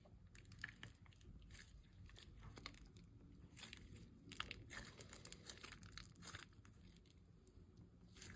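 Faint, irregular crackling and tearing of slime being stretched and kneaded by hand.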